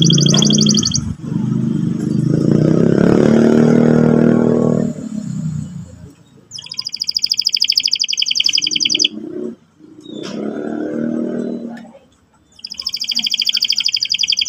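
Domestic canary singing fast rolling trills of rapidly repeated high notes, in three bouts: briefly at the start, in the middle, and again near the end. A louder, lower pitched sound runs underneath through the first few seconds, then stops.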